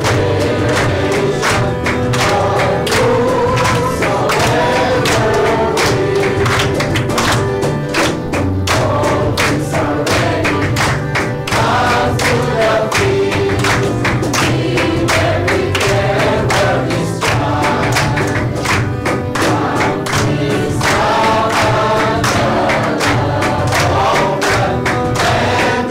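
Worship music: a group of voices singing a gospel song together over accompaniment with a steady beat.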